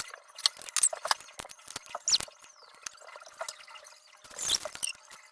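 Liquid poured into a cup for a drink, with scattered clicks and knocks of handling and a short splashy burst about four and a half seconds in.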